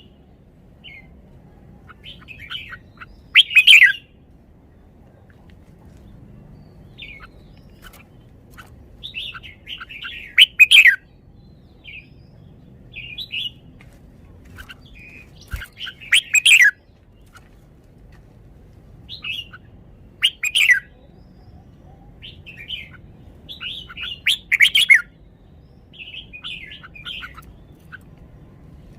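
Red-whiskered bulbul singing: short, loud song phrases about every four to six seconds, with softer twittering notes between them.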